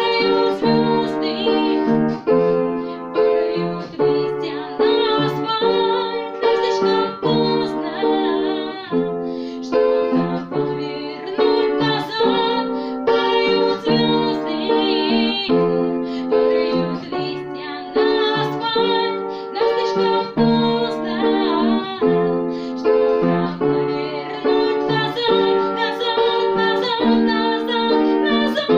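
Piano playing a pop-rock song: repeated chords in an even rhythm under a melody.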